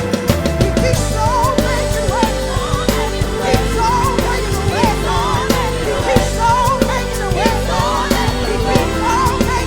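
Live worship band music: drum kit and bass under sustained chords, with a melodic lead line running up and down over them.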